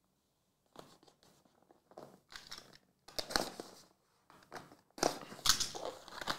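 A box cutter slitting the plastic shrink-wrap on cardboard hobby boxes of trading cards, with the wrap crinkling and tearing and the boxes scraping as they are handled. It comes as short scratchy bursts, getting busier and louder near the end.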